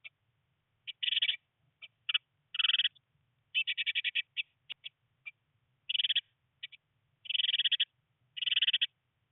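Blue tits calling inside a nest box: short, rapid rattling trills, about one a second, with single high chips in between.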